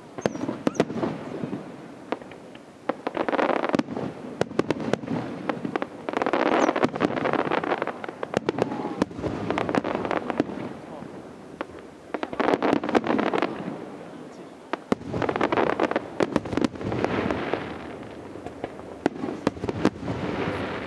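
Fireworks display: a steady run of sharp bangs and crackles, with louder surges of bursts every three seconds or so.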